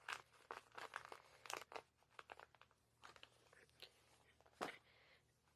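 Faint crinkling and crackling of a paper vacuum cleaner bag being handled, made of many small sharp clicks, with one louder snap about four and a half seconds in.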